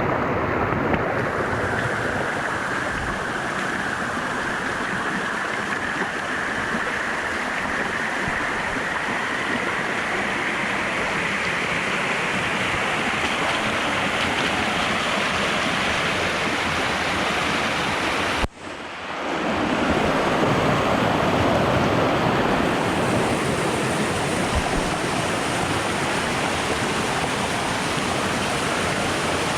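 Steady, full rush of falling water from a waterfall or fast stream. About two-thirds of the way through it cuts out for an instant and fades back in.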